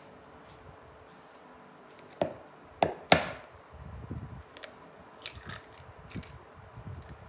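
An egg knocked against a hard edge three times, about two seconds in, the third knock the loudest as the shell cracks. Softer handling sounds and light clicks follow as the shell is pulled open and the egg drops into the bowl of flour.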